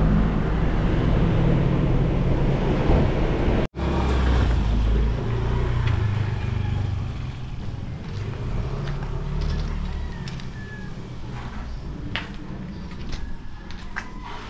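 Bus in motion heard from inside the cabin: a steady low rumble of engine and road noise. It cuts off abruptly about four seconds in and comes back, then grows quieter in the second half, with scattered light clicks and knocks.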